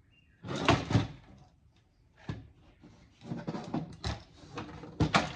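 Knocks and rattles of an audio equalizer's chassis and parts being handled and worked on during teardown. Two loud knocks come about a second in, scattered clatter follows, and another sharp pair of knocks comes near the end.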